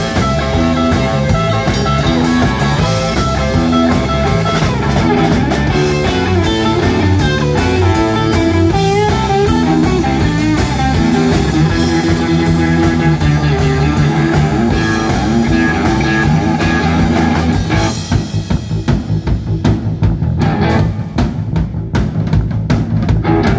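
Live rock band playing an instrumental passage on electric guitar, electric bass and a Pearl drum kit. About eighteen seconds in the sound thins out and the drums carry a short break.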